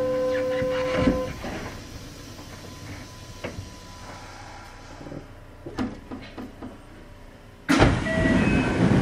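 Inside a Kintetsu 5800 series electric commuter train: a steady motor whine stops with a knock about a second in as the train comes to a halt. Quieter cabin noise with scattered clicks follows, then a sudden loud rush of noise with short beeps near the end.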